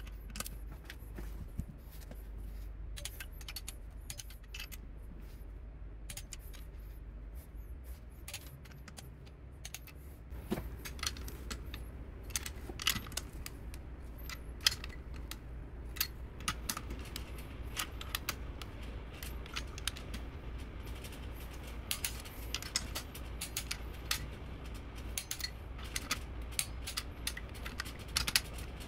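Tekton click-type torque wrench ratcheting on cylinder head bolts being tightened to 33 foot-pounds: a long scatter of sharp metallic clicks and clinks that come more thickly after about ten seconds.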